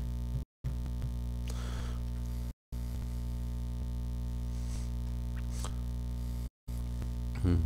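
Steady electrical mains hum with its harmonics, picked up through the stream's microphone. It cuts out completely for a moment three times, with a few faint soft rustles in between.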